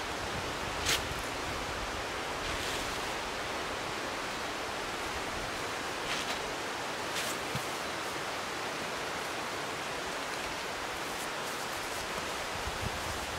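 Steady, even rushing background noise, with a few brief crackles of a blue plastic tarp being spread and smoothed on the ground.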